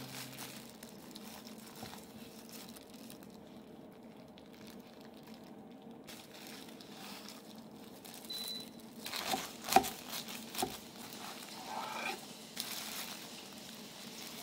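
Plastic cling film crinkling as wrapped, halved sandwiches are handled and pulled apart, with a few sharp taps partway through.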